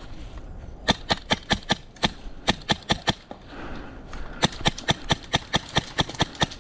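Wolverine MTW high-pressure-air airsoft rifle with an Inferno Gen2 engine firing rapid semi-automatic shots, about five a second, in two strings with a pause of about a second between them.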